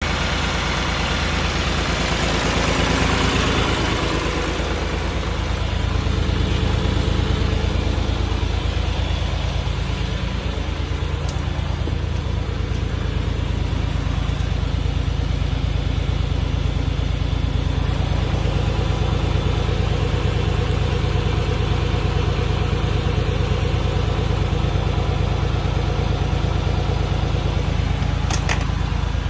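John Deere tractor engine running steadily at low speed.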